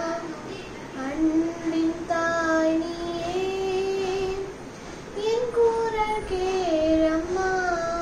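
A young girl singing a Tamil devotional song to Mother Mary solo, in a single voice, holding long notes that slide smoothly from one pitch to the next, with short breaks for breath.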